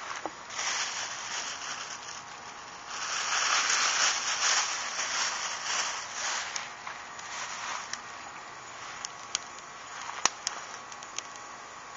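A plastic bag being handled and rustling in crinkly spells, loudest in the middle. Near the end come scattered sharp crackles and pops from the charcoal grill.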